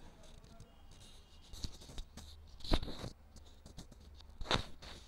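Steel spoon scraping and clinking against a metal pot while stirring thick jaggery-and-sugar syrup, with three sharper clinks about one and a half, two and a half and four and a half seconds in. The syrup is stirred constantly so it does not catch on the bottom as it cooks down to the syrup stage.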